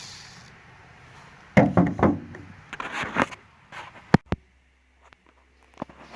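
A drill's whine falls away in the first half second, then a run of knocks and clatters, with two sharp clicks a little past the middle: tools and metal being handled after the spot weld cut.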